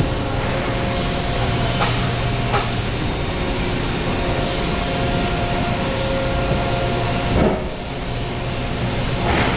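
495-ton Sumitomo injection molding machine running, a steady mechanical hum with a few light clicks. A sharp knock comes about seven and a half seconds in, and a short rush of noise comes near the end.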